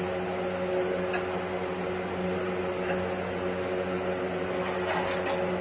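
A steady machine hum, with a few light clacks as metal parts are handled and set down, most of them near the end.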